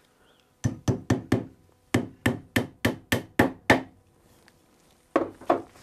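Tack hammer driving upholstery tacks through seat webbing into a wooden chair rail: a quick run of sharp taps, four, a short pause, then seven more at an even pace, and two more near the end.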